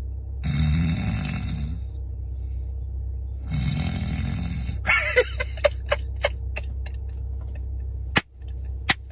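A woman snoring: two long, rattling snore breaths about three seconds apart, followed by a run of short sharp clicks that slow down, over a steady low hum.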